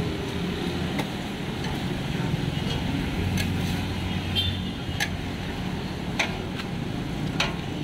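Metal spatula clinking against a steel wok a few times while stirring a sauce, over a steady low rumble.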